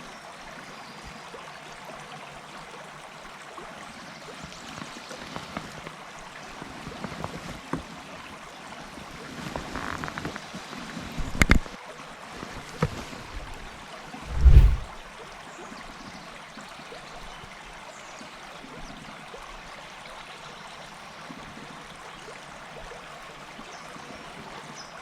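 River water running steadily, with a few sharp knocks and, a little past the middle, one short low thump that is the loudest sound.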